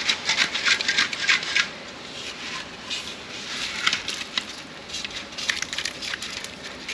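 Hard salt scale crunching and rattling as it is scraped and shaken out of a water heater's tank: quick clusters of sharp clicks, dense in the first second and a half, then scattered. The scale is built up from salty borewell water.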